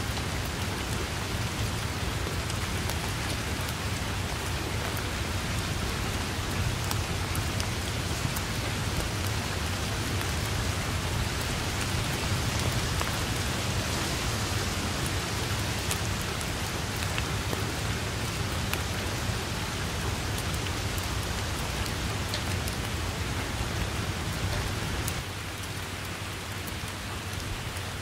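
Steady rain, a dense hiss with scattered drop taps, over a low rumble. The rumble and the overall level drop slightly about three seconds before the end.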